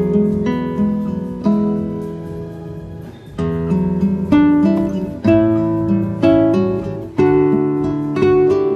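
Background music: an acoustic guitar picking and strumming chords, each chord struck and left to ring.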